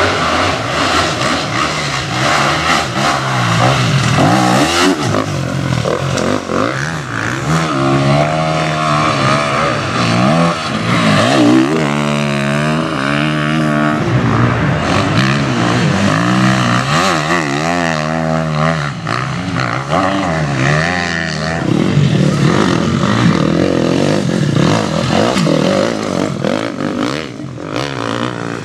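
Enduro motorcycles revving hard as they ride through the course, engine pitch climbing and dropping over and over with the throttle and gear changes.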